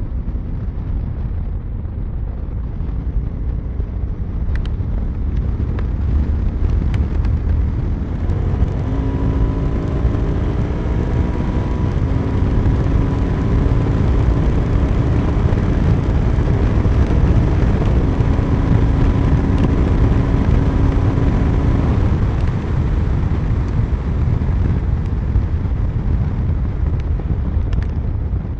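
Heavy wind rush on the microphone of a motorcycle riding at speed, the 2021 Honda Africa Twin's parallel-twin engine note showing through from about nine seconds in to about twenty-two seconds, rising in a few steps as the DCT gearbox shifts up under acceleration.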